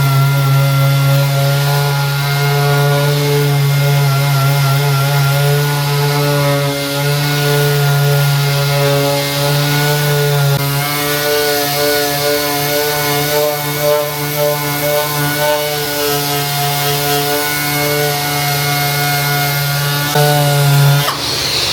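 Power sander running steadily on bodywork, a loud motor hum whose pitch wavers slightly under load. It stops near the end, followed by a short hiss.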